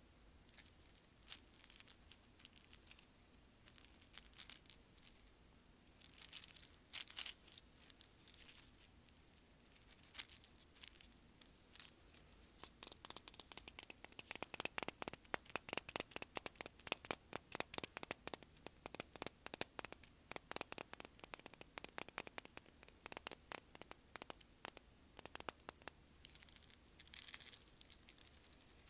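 Fingernails tapping on small glass bottles filled with beach shells and pebbles: scattered light taps at first, then a long, fast run of close-up taps from about halfway through until near the end.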